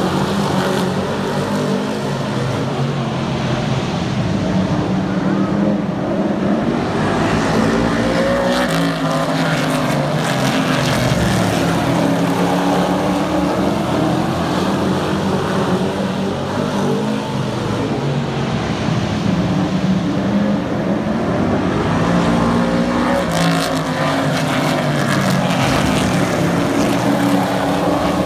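Several super truck race trucks lapping a paved short oval at racing speed. Their engines drone continuously, and the notes rise and fall as trucks pass one after another.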